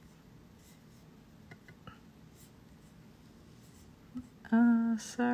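Faint clicks in a quiet room, then near the end two short held notes with a clear pitch, each about half a second long, from the computer's speaker as the video starts playing.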